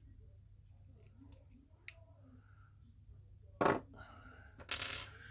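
Small parts of a paintball marker being handled on a table: mostly quiet, with one sharp click about three and a half seconds in and a short scraping rustle near the end.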